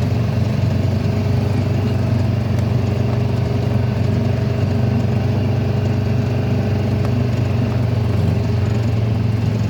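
Honda Pioneer UTV engine running at a steady, unchanging note.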